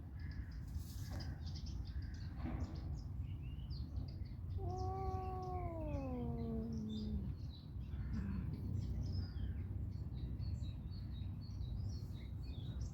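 A cat giving one long meow that falls in pitch, about five seconds in, over a steady low rumble and scattered faint high ticks.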